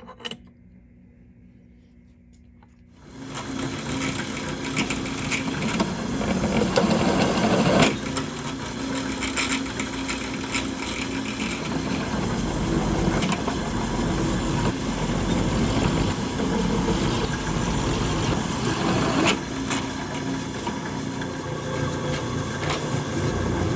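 A small metal clink, then a bench drill press starts about three seconds in and runs, its cutter chamfering the drilled holes in a metal T-nut bar. Near the end a tap in the chuck is starting the threads.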